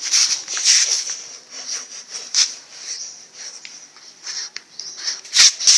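A small dog sniffing and huffing right at the microphone, its fur brushing against it in irregular hissy bursts, with a sharp bump about five and a half seconds in.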